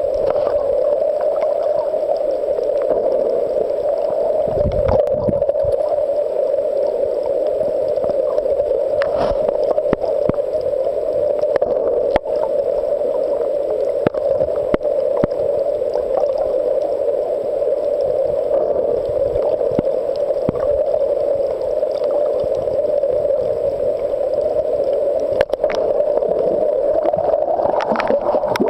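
Steady, muffled underwater noise picked up by a camera filming beneath the sea: a constant hum with scattered faint clicks and a few low thumps.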